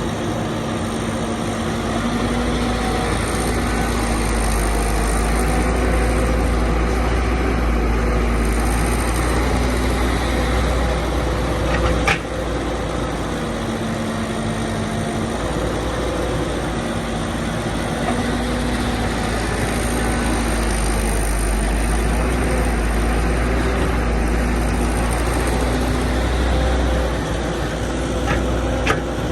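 Excavator engine running steadily under load, with a humming tone that swells and fades every second or two. A sharp knock comes about twelve seconds in and another near the end.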